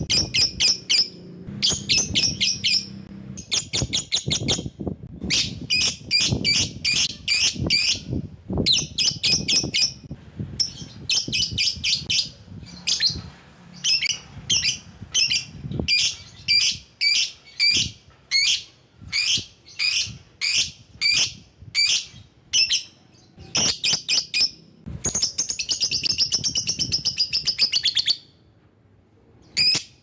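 Lovebird chattering: quick runs of sharp, shrill chirps, several a second, broken by short pauses. Near the end the runs merge into one longer, continuous harsh trill that stops abruptly.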